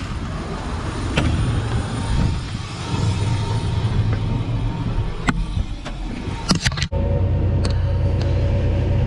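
Vehicle running with a low rumble and a few sharp clicks. About seven seconds in it cuts abruptly to a steady engine drone with a constant whine.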